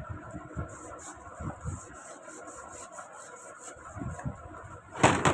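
Sandpaper scrubbing the rust off a seized sewing-machine bar in quick, repeated strokes, then one loud knock near the end.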